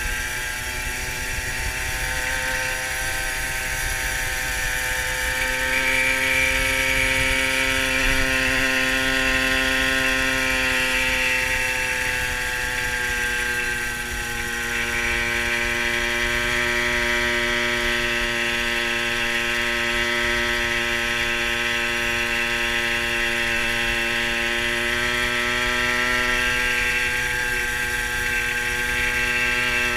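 Small two-stroke engine of a 1970s Fantic TI sports moped running under way. Its note climbs about five seconds in, then settles lower around fourteen seconds in, with a low wind rumble underneath.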